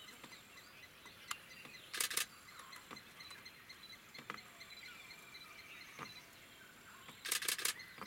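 Camera shutter firing in short bursts of sharp clicks: two or three about two seconds in and four near the end, with a few single clicks between. Behind them is a faint, evenly repeated high chirping.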